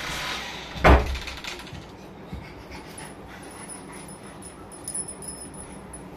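A pet dog: one loud sharp yelp about a second in, then faint high-pitched whining.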